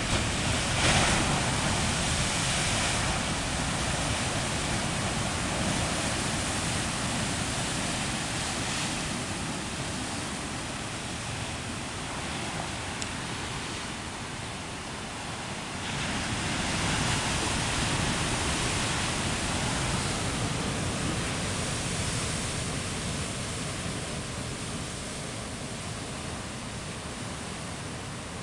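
Heavy ocean surf breaking and churning into whitewater against a rocky shore: a continuous rush of water that swells louder as a big wave crashes about a second in, and again about sixteen seconds in.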